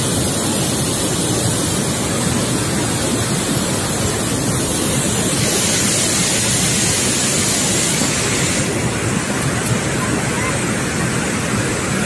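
Steady, loud rush of a waterfall, a constant wash of water noise with no distinct events.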